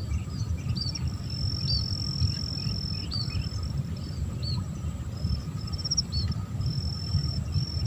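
Insects trilling in long, high, steady stretches over repeated short, high chirps about twice a second, with a low rumbling noise underneath.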